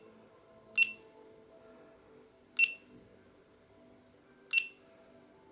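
GoPro Hero 8 camera beeping three times, short high single-pitched beeps about two seconds apart, as its touchscreen and settings are worked.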